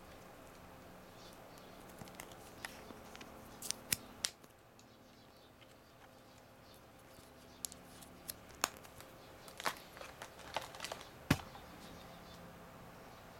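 Hands handling thin electrode lead wires and plastic packaging: scattered light clicks and ticks, in two clusters, with a sharper tap near the end.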